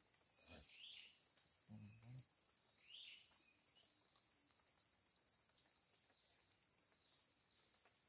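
Faint, steady high-pitched insect chorus, crickets droning without a break, with a few short faint chirps in the first few seconds.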